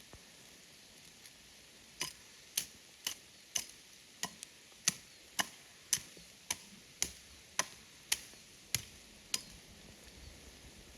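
A tool striking wood in steady blows, about fifteen sharp knocks at roughly two a second, starting about two seconds in and stopping near the end, over a steady background hiss.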